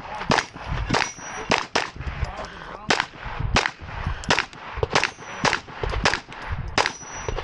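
Glock 34 9mm pistol fired in rapid strings during a USPSA stage: about fifteen sharp shots, roughly two a second, with short pauses between groups.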